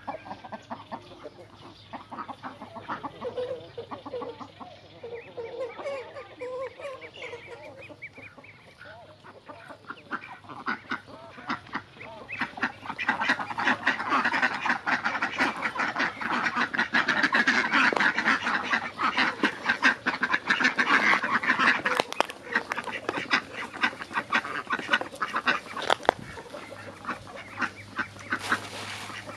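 Chickens clucking at first, then a flock of domestic ducks quacking, swelling into a loud, dense chorus of rapid quacks a little under halfway through and easing off about three quarters of the way in.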